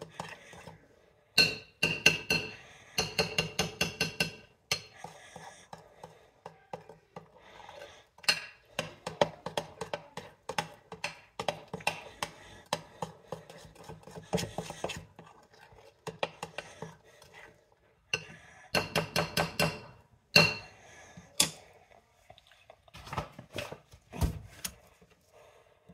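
Spoon clinking and scraping against a mixing bowl while stirring cupcake batter, in runs of quick taps broken by brief pauses.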